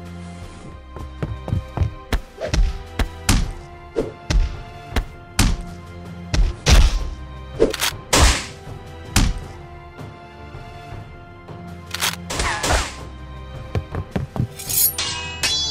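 Fight sound effects of blows, a long series of sharp thuds and whacks with a couple of swishes, over steady background music.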